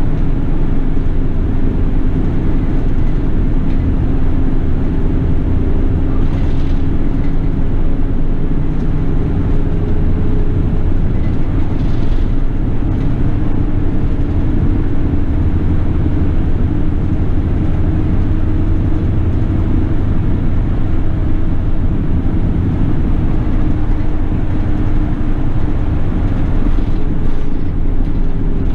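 City bus under way: its diesel engine hums low, the pitch drifting slowly up and down as it drives, over steady road rumble.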